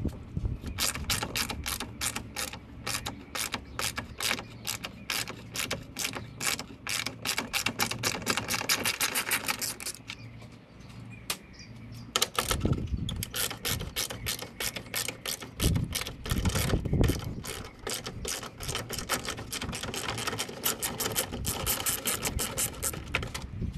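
Quarter-inch hand ratchet clicking fast, about four or five clicks a second, as bolts on the air intake duct are backed out. There is a short pause about ten seconds in, and a few dull knocks midway.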